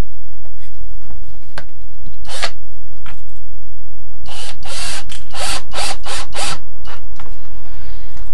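Cordless drill-driver run in a quick series of short stop-start bursts, about half a dozen in two seconds, screwing the base of a small wood lathe down to the wooden bench. A few handling knocks and clicks come before it.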